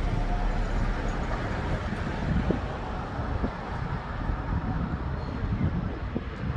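Road traffic on a seafront road with a car driving close past, under heavy wind buffeting the microphone.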